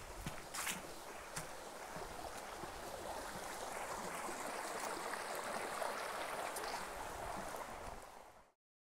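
Small forest stream running over rocks, a steady rushing that grows slightly louder partway through, with a few footsteps on the wooden boardwalk in the first second or two. The sound cuts off suddenly near the end.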